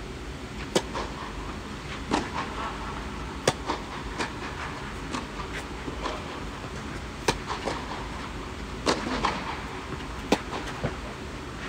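A tennis rally: sharp pops of rackets striking the ball and the ball bouncing, roughly one every second, starting with a serve. Loud near-court hits alternate with fainter far-court ones, echoing under the court's air dome.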